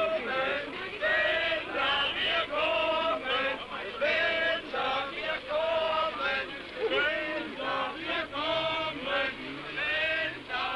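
Male voices singing together in short, rhythmic, chant-like phrases that repeat steadily.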